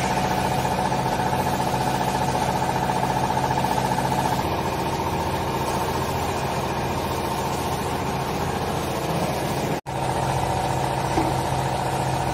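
Hydraulic power unit of a vertical used-clothes baler running, a steady electric-motor and pump hum with a whine, broken by a brief gap about ten seconds in.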